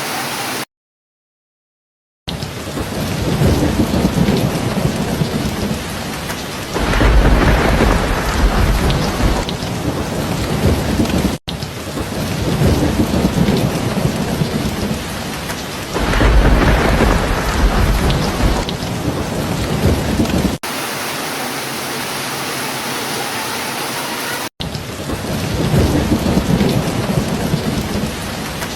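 Steady heavy rain with low rolls of thunder swelling up three times. The track drops to silence for about a second and a half near the start, and cuts abruptly twice between spliced segments of the recording.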